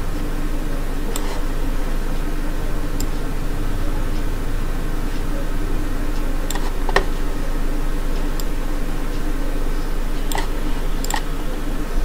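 Steady electrical hum and room noise, with a handful of scattered sharp clicks from working a computer's mouse and keyboard.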